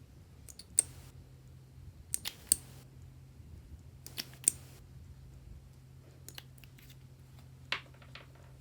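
Butter slime being kneaded and folded by hand, giving off a string of sharp pops and clicks as air pockets in it burst, half a dozen loud ones spread irregularly with fainter clicks between.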